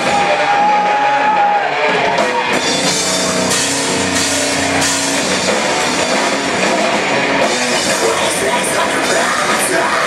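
A rock band playing loudly and live: electric guitars, bass and a drum kit with cymbals, with a singer's voice over them. A held note rings out in the first second and a half before the full band takes over.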